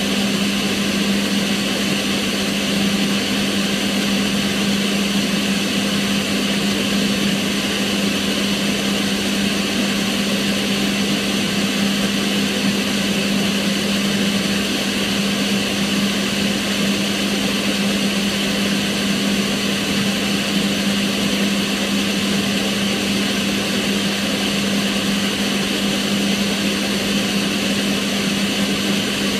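Kitchen range hood extractor fan running steadily, a constant low hum under an even rush of air.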